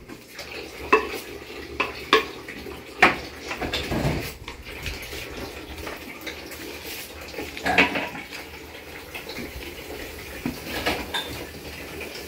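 Kitchen clatter of dishes and utensils: irregular sharp clinks and knocks, loudest about three seconds in and near eight seconds, over a steady hiss.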